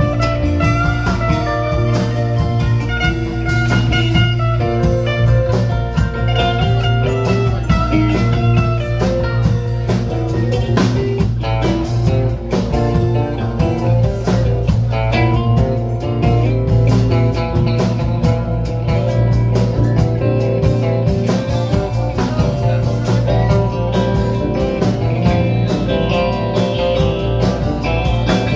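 Live rock band playing an instrumental jam: two electric guitars trading lines over electric bass, drum kit and keyboard, steady and loud throughout.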